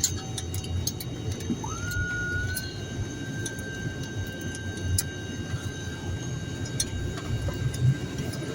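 Airliner cabin noise after landing: a steady low rumble with scattered sharp clicks, and a whine that rises about a second and a half in and then holds at one steady pitch.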